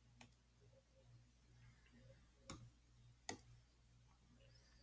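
Near silence: room tone with a faint low hum, broken by three short sharp clicks, the loudest a little past three seconds in.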